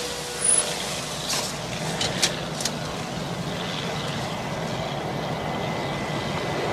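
Steady vehicle engine noise, with several sharp clicks and knocks in the first three seconds.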